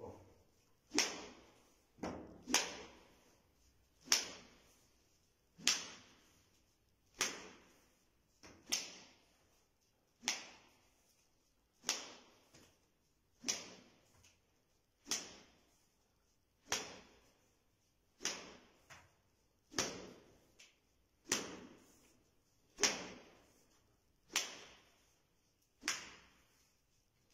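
Sharp strikes in an even rhythm, about one every second and a half, each dying away within about half a second.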